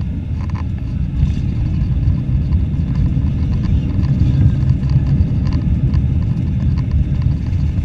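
Airbus A318 landing rollout heard from inside the cabin: a loud, deep rumble of the engine in reverse thrust and the wheels on the runway, with scattered short knocks as the gear runs over the runway surface.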